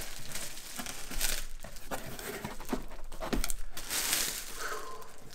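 Laptop packaging being handled and pulled apart: crinkling and rustling, with a few scrapes and clicks. It gets louder about a second in and again around four seconds in.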